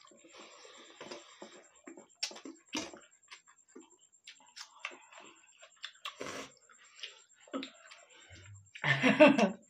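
Eating sounds: fingers mixing and scooping rice and dal on steel plates, with mouth smacks and scattered small clicks. About nine seconds in, a short, loud vocal sound from one of the eaters.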